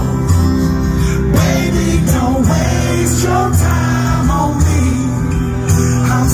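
A male singer sings live into a microphone over loud amplified music with a heavy bass line, heard through the PA from within the crowd.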